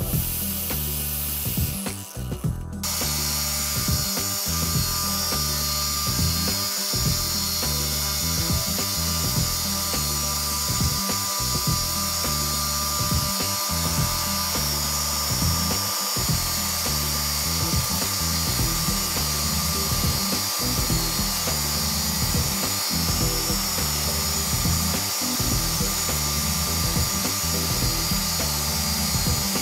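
Bench grinder running with a steel shaft held against its stone wheel, a steady grinding whine, over background music. For the first couple of seconds, before a cut, a wire wheel on an angle grinder brushes rust off a sheet-metal motor fan cover.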